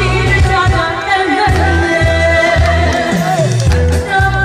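A woman singing a Korean song into a microphone over backing music with a steady, evenly pulsing bass beat.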